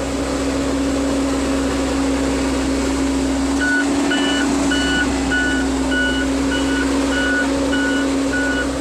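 Case 580L backhoe's diesel engine running steadily under load. About three and a half seconds in, a reversing alarm starts beeping, a bit under two beeps a second, as the machine backs up.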